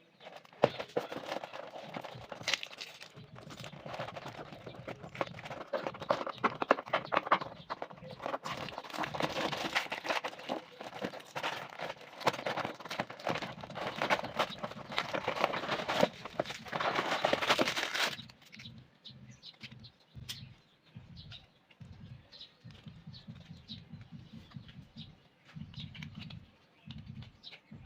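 Plastic packaging crinkling and rustling, with many small clicks, as a mini tool kit is unboxed. About 18 seconds in the crinkling stops, leaving only quieter, low handling knocks.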